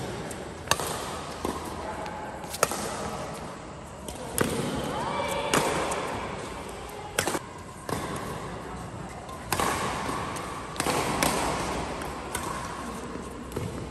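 Badminton doubles rally: sharp cracks of rackets striking the shuttlecock, about one every second or so, echoing in a large sports hall.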